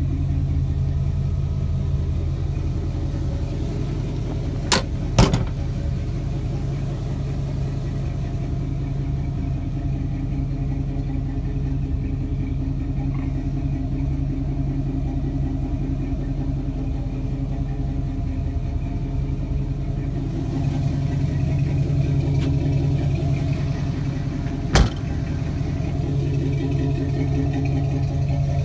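Jeep CJ-7's 350 small-block Chevy V8 idling steadily. Two sharp clicks come about five seconds in and another near the end.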